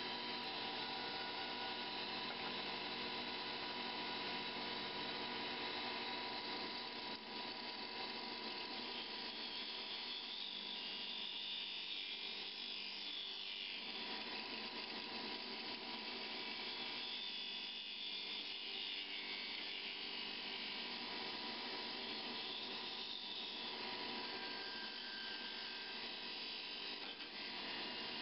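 Wood lathe running steadily with a motor hum and whine as a hand-held turning tool cuts a spinning mahogany plug blank down to its final diameter. Several stretches of hissier cutting noise come and go as the tool is worked along the wood.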